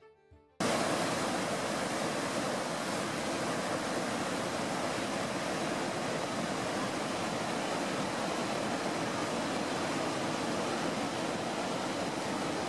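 Merced River whitewater rapids rushing over granite boulders: a steady, loud roar of water that cuts in suddenly about half a second in.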